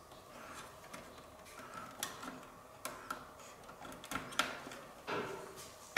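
Plastic PC power-cable plugs being handled and pushed into place at a graphics card: light rustling with a handful of sharp, irregular clicks. The strongest click comes about two-thirds of the way in.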